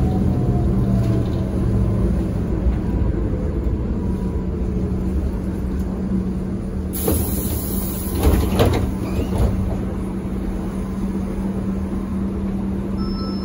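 Inside a ZiU-682G trolleybus: a steady electrical hum, with a faint motor whine falling in pitch as it slows to a stop. About seven seconds in comes a hiss of air, and around a second later several clunks as the pneumatic doors open.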